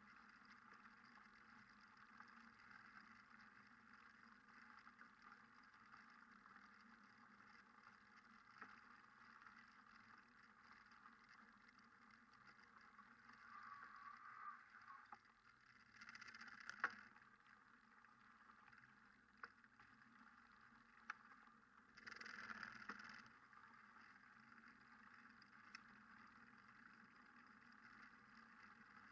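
Near silence: a faint steady hum, with a few soft clicks and two short bursts of hiss about 16 and 22 seconds in.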